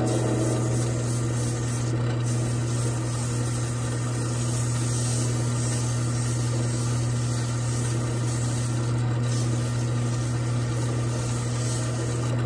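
Wood lathe motor running with a steady hum while sandpaper is held against the spinning bocote duck call, adding a continuous rubbing hiss.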